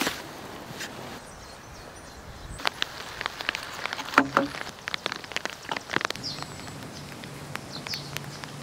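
A shovel biting into soil at the start, then a run of sharp clicks and knocks with footsteps on dirt as a plastic drain pipe is handled and laid in a trench.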